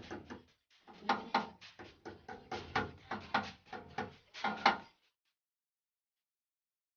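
A rapid series of knocks and rattles, like hard objects being handled, that stops abruptly about five seconds in.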